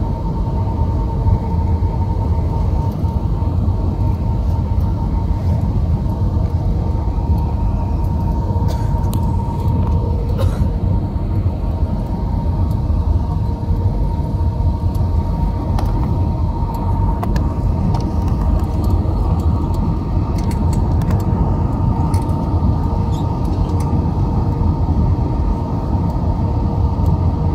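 Airbus A320-214 cabin noise in flight: the steady rumble of the CFM56 engines and airflow heard from a seat over the wing, with a faint steady high hum above it.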